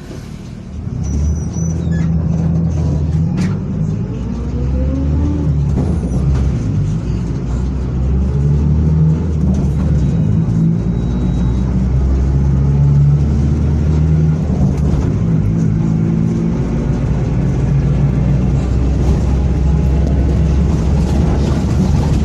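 Mercedes-Benz OF-1722M city bus's diesel engine pulling away and accelerating, rising in pitch over the first few seconds, then running on under load with swells as it changes through the gears. A growl from the driveshaft (cardan) runs under it, the fault the bus is known for.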